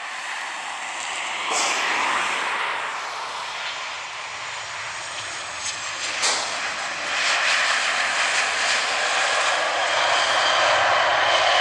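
Boeing 737-800's CFM56 jet engines on final approach, a steady whining rush that grows louder as the airliner nears. The main wheels touch down about six seconds in with a brief sharp sound, and the engine noise rises again during the rollout.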